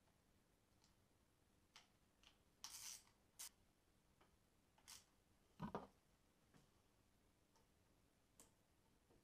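Faint, scattered clicks and short scrapes of small metal parts and hand tools being handled, with one dull knock a little past halfway, against near silence.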